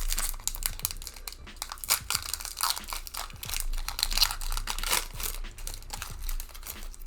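Foil wrapper of a Pokémon trading-card booster pack crinkling and tearing as it is opened, a continuous run of crackles.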